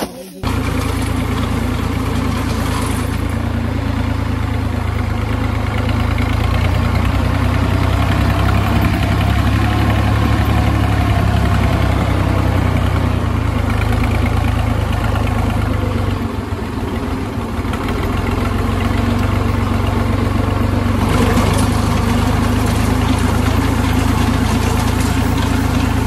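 Tractor diesel engine running steadily under load, driving a front-mounted reaper binder that is cutting wheat. It starts abruptly just after the beginning.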